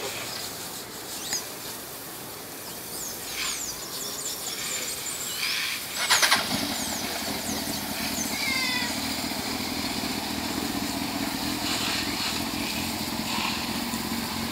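A sport motorcycle's engine starts about six seconds in with a short loud burst, then settles into a steady idle.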